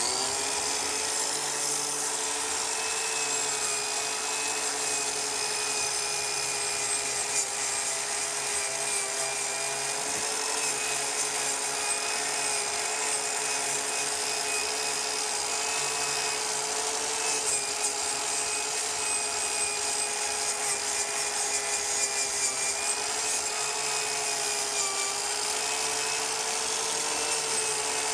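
Angle grinder fitted with a wire wheel, running steadily as it brushes a lacquer-like coating off a new exhaust muffler. Its high motor whine sags slightly in pitch now and then as the wheel is pressed into the metal.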